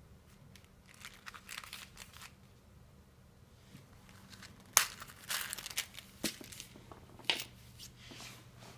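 Hands handling the imitation-leather wallet case of a small precision screwdriver set, rustling and scraping as it is opened and unfolded. Several sharp clicks follow from about five seconds in, the loudest right at the start of them.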